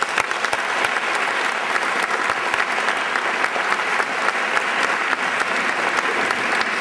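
Audience applauding steadily, a dense sound of many hands clapping.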